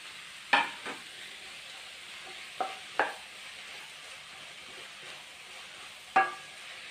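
Onion, carrot and tomato frying with a faint steady sizzle in a Nirlep non-stick kadai, stirred with a spatula that knocks against the pan five times, a few of the knocks ringing briefly.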